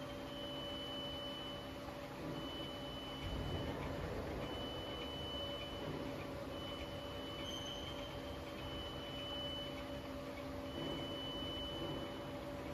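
Double-turret CNC lathe running, its spindle turning a workpiece with a steady machine hum. A high electronic beep sounds over it, each beep lasting about a second and a half and repeating roughly every two seconds.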